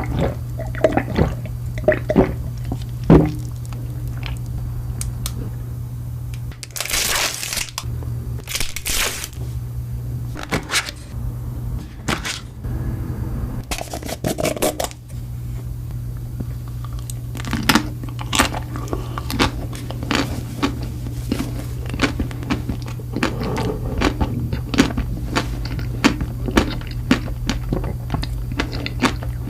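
Close-up eating sounds: crunchy bites and crackling chews in quick irregular clicks, with two longer crunching stretches partway through. A steady low hum runs underneath.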